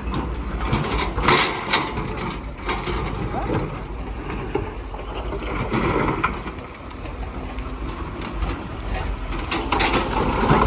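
Heavy construction machinery's diesel engine running with a low, steady rumble, with irregular metallic clanks and rattles over it.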